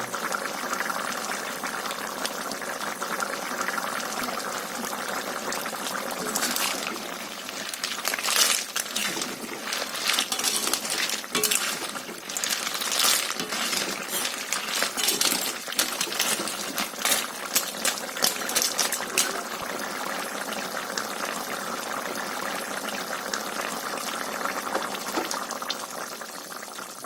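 Liquid boiling in a cooking pot: a steady bubbling hiss, with a spell of sharp pops and clicks through the middle.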